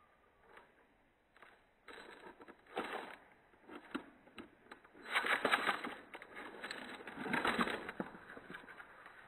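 Dry bread rustling and scraping in bursts as a hand shifts the slices on a tray, loudest about five seconds in and again near eight seconds.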